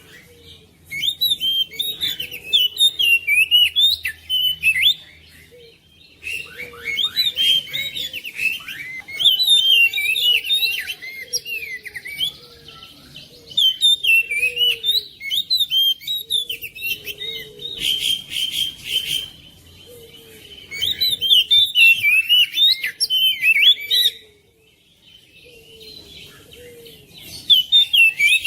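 Oriental magpie-robin (kacer) singing: bursts of rapid, varied chirps and whistles, each lasting a few seconds, with short pauses between them.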